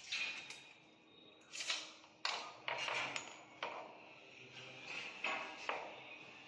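Irregular sharp clinks and taps of a mason's hand tools and brick against a polished granite stair slab, about eight strikes with short ringing, the loudest in the middle.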